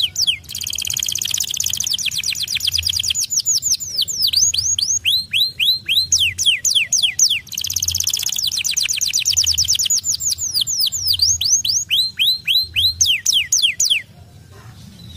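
White canary singing a long, fast song of rapid trills and quick downward-sweeping whistled notes, stopping about a second before the end.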